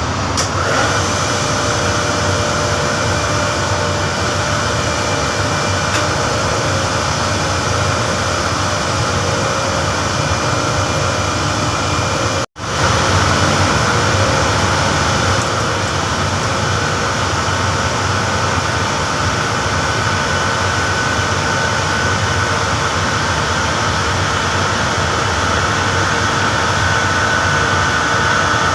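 Refrigeration plant machinery, a screw compressor and air handling unit, running steadily: a loud drone with steady whining tones over it. The sound cuts out abruptly for an instant about halfway through, then carries on.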